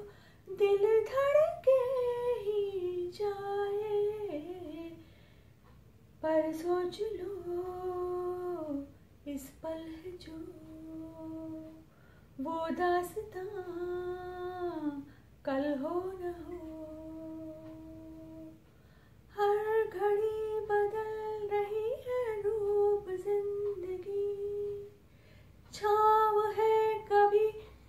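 A woman singing solo without accompaniment, holding long notes in phrases broken by short pauses.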